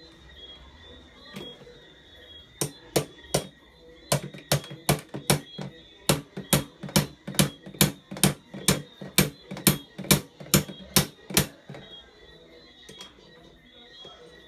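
About two dozen sharp knocks in a steady run, roughly three a second, starting a couple of seconds in and stopping near the end, with a brief pause after the first three.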